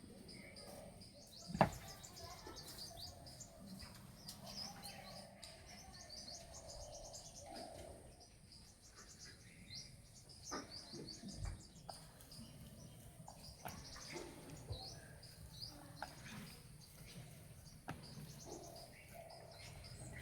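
Small birds chirping rapidly and continuously in the background, with a few sharp knocks, the loudest about one and a half seconds in.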